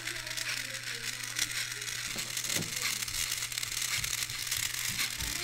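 Light rustling and faint knocks of a plastic toy robot body being handled and turned over in the hands, over a steady hiss and low hum.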